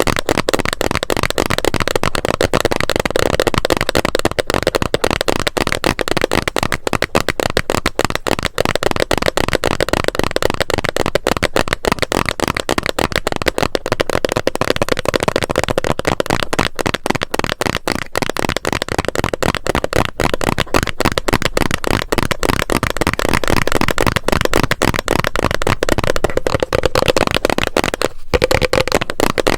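Fast, dense tapping on a plastic bottle, many taps a second in an unbroken stream, with a brief pause near the end.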